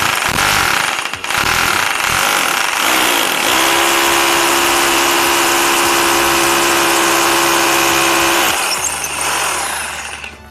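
Electric rotary hammer drill with an 8 mm bit, hammer-drilling an anchor hole into a tiled wall. It runs loud and continuous, settles into a steady motor whine in the middle, then stops near the end.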